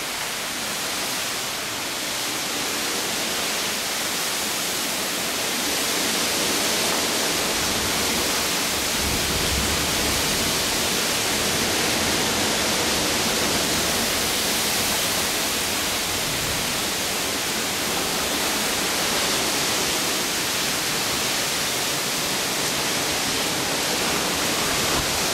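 Heavy wind-driven rain pouring down in a storm: a loud, steady, dense hiss, with a low rumble of a gust about nine seconds in.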